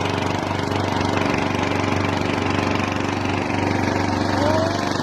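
An engine running steadily, with a short rising tone near the end.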